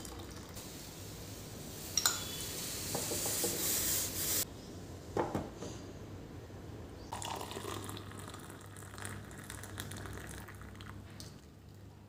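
Milk poured into a steel saucepan of boiling tea: a splashing stream of liquid, with clinks of steel pan on pan about two seconds in and again near five seconds. Softer handling noise follows.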